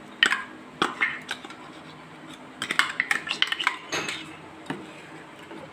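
Stainless steel ladle clinking and scraping against steel vessels as ground masala paste is scooped out of a mixer jar into a pot of tamarind water: a scattering of light metallic clinks, with a quick cluster about three seconds in.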